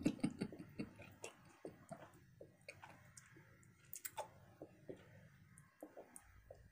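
A mouth chewing a large wad of five pieces of Bubblicious bubble gum, making irregular wet clicks and smacks.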